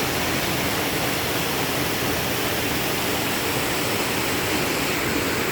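Steady rush of a waterfall, an even hiss of falling water that neither rises nor falls.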